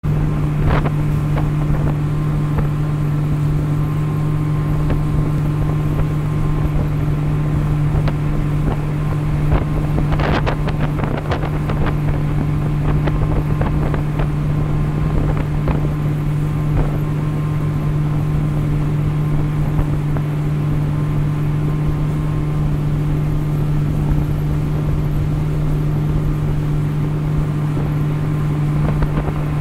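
Motorboat engine running at a steady cruising speed, a constant drone with no change in pitch, mixed with water rushing past and wind buffeting the microphone, which comes in short gusts about ten seconds in.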